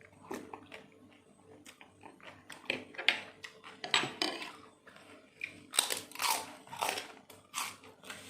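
Biting and chewing on crispy kerupuk kresek crackers: a string of irregular crunches, loudest and densest from about three to seven seconds in.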